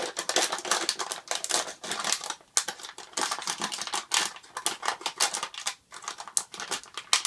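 Thin plastic water bottle crackling as it is cut and handled, a rapid, irregular run of sharp clicks and snips.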